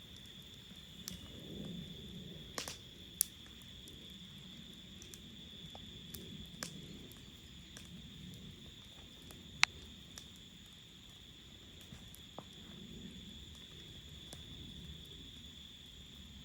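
Insects trilling steadily in one high unbroken note, over a low background rumble, with scattered sharp clicks, the loudest about ten seconds in.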